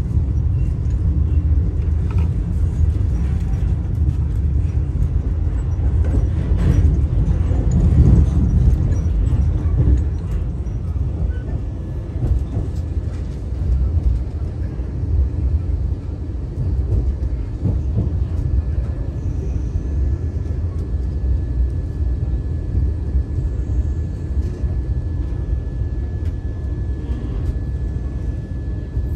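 Vande Bharat Express train running, a steady low rumble that swells a little around seven to ten seconds in.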